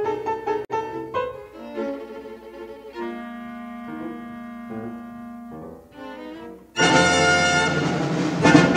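Instrumental background music: a run of quick notes, then a quieter stretch of held notes, then a sudden louder, fuller passage about seven seconds in.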